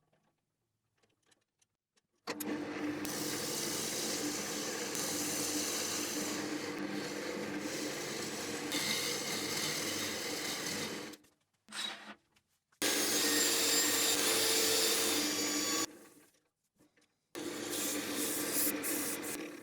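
Wood lathe running as a tool or sandpaper works a spinning apple-root bowl: a steady motor hum under a rubbing, cutting noise. It starts about two seconds in and comes in three stretches, each stopping abruptly.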